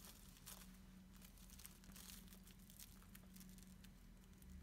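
Near silence: faint crinkling and rustling of a paper perm end paper and wet hair being wound onto a perm rod, over a low steady hum.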